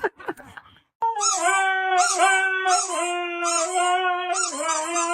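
A dog howling: one long, held howl starting about a second in, steady in pitch but dipping briefly several times.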